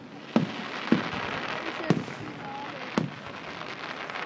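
Aerial fireworks shells bursting: four sharp bangs about a second apart over a steady noisy background.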